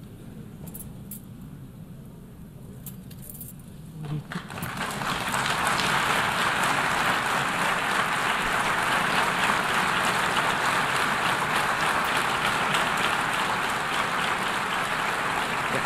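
A large crowd applauding, breaking out about four seconds in and continuing steadily, after a quiet hall with a few clicks.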